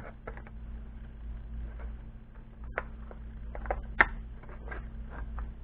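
Scattered small clicks and taps of hard 3D-printed plastic as sunshade pieces are worked and slid onto a drone controller's phone holder, with the sharpest click about four seconds in. A steady low hum runs underneath.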